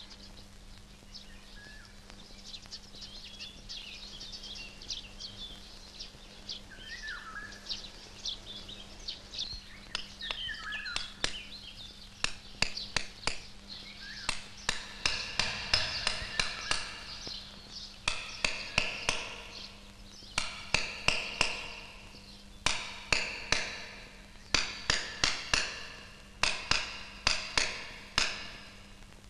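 Hammer striking a steel chisel into a stone grave slab, stone carving: light, sparse taps at first, then loud runs of quick blows, each ringing with a metallic tone, a few blows a second. A few bird chirps in the first seconds.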